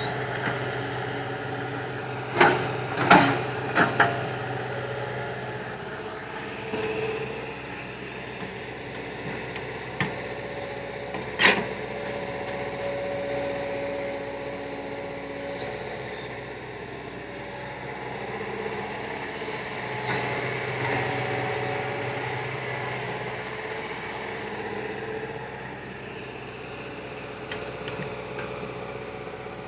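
Hydraulic excavator's diesel engine running steadily, swelling under load now and then, with a few sharp metallic knocks, three in quick succession about 2 to 4 seconds in and one more about 11 seconds in.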